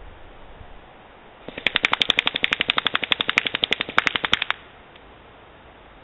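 Airsoft gun firing one fast automatic burst of about three seconds, roughly a dozen shots a second, starting about a second and a half in and cutting off.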